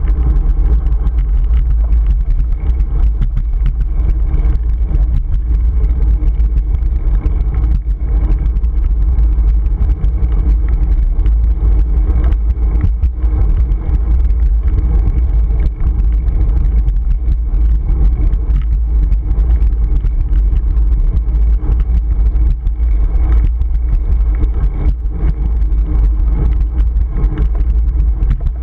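Wind buffeting a GoPro Hero 3's microphone on a moving bicycle: a loud, steady low rumble.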